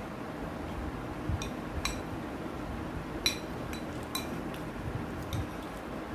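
Metal spoon clinking against a glass plate as food is scooped up: a string of sharp, ringing clinks, the loudest a little past three seconds in.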